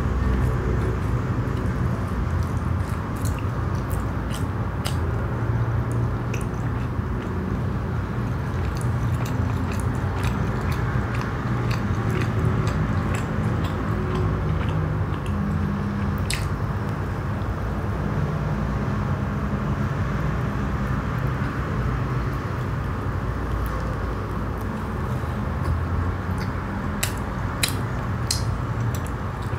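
Steady chewing of soft chocolate-filled naan bread, with many small, sharp wet mouth clicks scattered through it.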